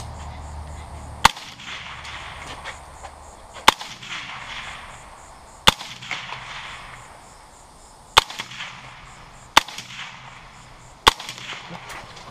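LWRC AR-style rifle firing six single aimed shots, spaced about one and a half to two and a half seconds apart, each followed by a short echo.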